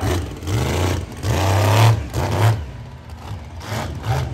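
Scarlet Bandit monster truck's engine revving in several short bursts as the truck drives across the dirt.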